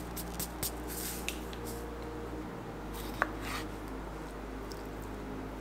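Quiet background music under light clicks and taps of food preparation, with a knife slicing through a lime and striking a wooden cutting board about three seconds in.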